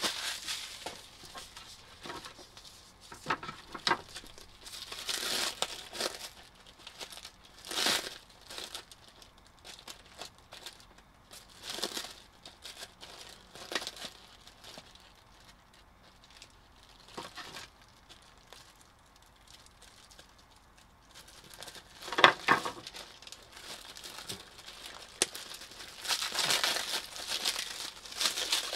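Clear plastic wrap crinkling and rustling in irregular bursts as it is handled and pulled off plastic battery-cell holders. There is a quieter spell past the middle, then a single sharp knock, then steady crinkling again near the end.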